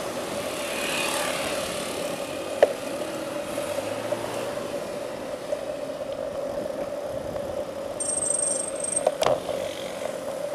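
Riding noise from a bicycle on the road: a steady hum with rushing noise, a sharp click about two and a half seconds in, and a short high-pitched squeal followed by a knock near the end.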